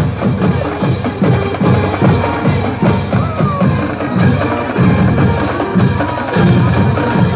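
Drums playing a steady, quick beat with sharp stick clicks over deep bass-drum hits, as from a marching band drumline.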